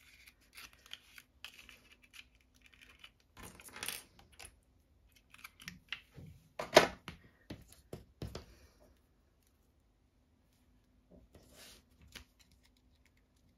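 Small clicks, clacks and rustles of craft supplies (ribbon, its plastic spool and tools) being handled and set down on a tabletop, in scattered bursts with the sharpest clack about seven seconds in, then a short rustle near the end.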